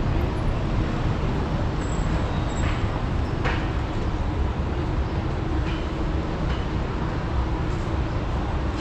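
City street ambience of steady traffic noise, with a couple of faint clicks about three seconds in.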